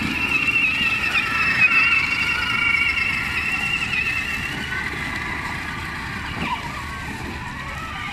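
Battery-powered children's ride-on toy quad bikes driving on concrete, their electric motors and gearboxes whining in a wavering pitch. The whine fades in the second half as the quads drive away.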